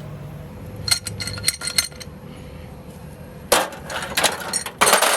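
Metal tools and parts clinking and clattering: a quick run of light clinks about a second in, then two louder stretches of rattling clatter near the end.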